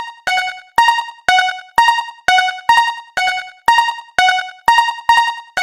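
Japanese railway level-crossing (fumikiri) warning bell, electronic, ringing a steady 'kan-kan' of about two strikes a second. Each strike dies away, and the strikes alternate between two pitches.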